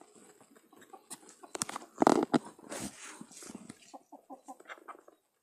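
Backyard chickens clucking in short, repeated low notes, with a louder burst of scuffling noise about two seconds in.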